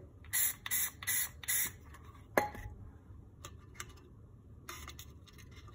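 Aerosol can of white spray primer, fired through a trigger grip, hissing in four short bursts over the first two seconds and in one more short burst near the end. About halfway through comes a single sharp click.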